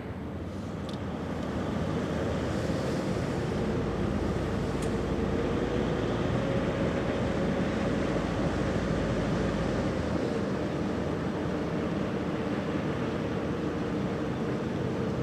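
Steady low drone of the cruise ship Arcadia's engines and machinery as she passes close by: a hum holding a few steady tones over a rushing noise. The sound swells over the first couple of seconds, and a deep rumble underneath drops away about ten seconds in.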